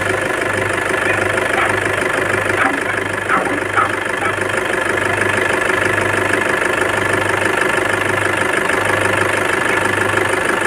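Toyota Fortuner's D-4D common-rail diesel engine idling steadily, warmed up, with a few light clicks in the first few seconds.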